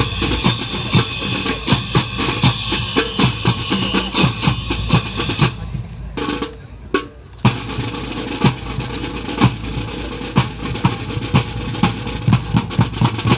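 Music with a drum-kit beat of sharp, regular hits, dropping away briefly about six seconds in before the beat resumes.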